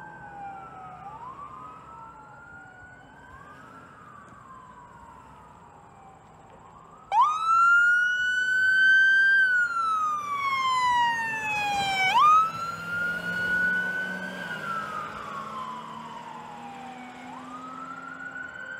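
Fire apparatus sirens wailing, several overlapping and faint. About seven seconds in, a 2019 Ford F-550 brush truck's siren starts up close and loud, rising and then falling in a slow wail. It sweeps sharply back up about five seconds later, then fades as the truck pulls away.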